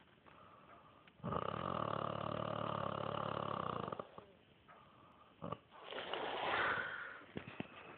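Snoring: one long, loud, buzzy snore starting about a second in and lasting about three seconds, followed near the end by a softer, breathy snore with a whistly, shifting pitch.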